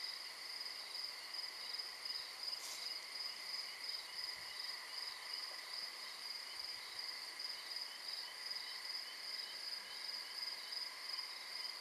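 Night chorus of crickets chirping steadily and rapidly, with one brief high tick about two and a half seconds in.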